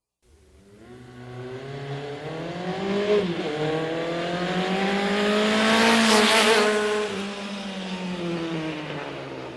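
An engine-like sound, likely a sound effect, that fades in out of silence and revs up, its pitch climbing and growing louder to a peak about six seconds in, then easing back down in pitch and level.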